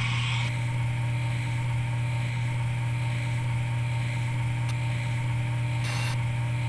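CNC milling machine running with a steady low hum, and a brief hiss about six seconds in.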